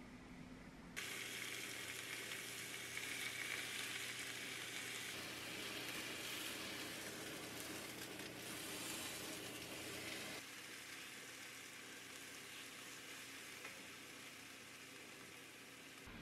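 Thin slices of beef sizzling and frying in a hot pan. The sizzle starts suddenly about a second in and drops to a quieter sizzle about ten seconds in.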